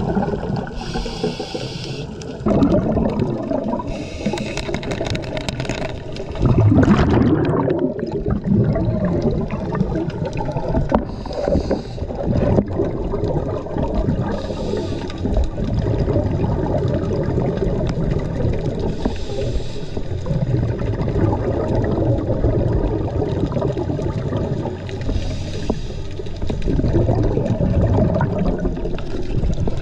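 Underwater sound of a scuba diver's regulator: a short breathing hiss every few seconds, with exhaled bubbles rumbling and gurgling in between, over steady water noise against the camera housing. A louder surge of bubbling comes about seven seconds in.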